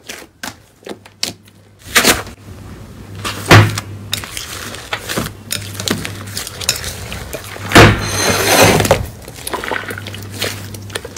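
Hands working thick slime: sparse soft sticky clicks as it is pulled apart, then squishing and squelching as a large slime is punched and kneaded, with two loud pops of trapped air about 3.5 and 8 seconds in. A steady low hum runs under the second part.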